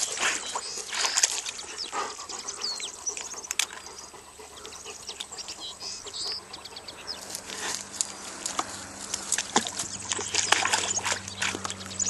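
Water splashing and sloshing irregularly as an Irish Setter swims and paddles in a small water tank.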